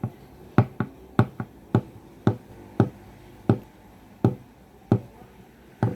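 Joints of a person's left hand cracking over and over as he repeats the same movement: about a dozen sharp, separate clicks, roughly one every half second.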